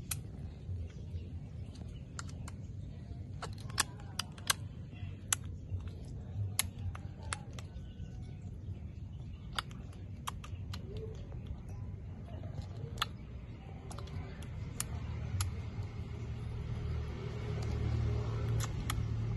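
Baby macaque suckling milk from a plastic feeding bottle: irregular sharp clicks and smacks of sucking at the teat, over a low rumble that grows louder near the end.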